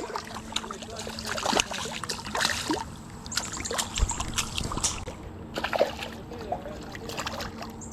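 Water splashing and sloshing with scattered clicks and rustles, as a hooked largemouth bass is brought in from the creek and handled.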